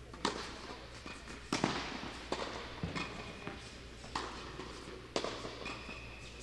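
Tennis balls struck by racquets and bouncing on a hard court during a rally: a series of sharp pops coming irregularly, every half second to a second or so.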